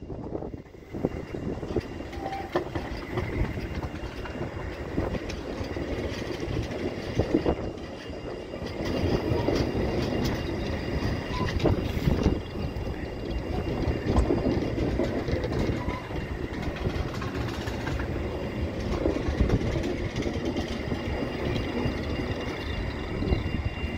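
A coupled pair of NGT6DD low-floor trams rolling slowly past at close range: wheels rumbling on the rails with occasional clicks, over a faint steady high whine.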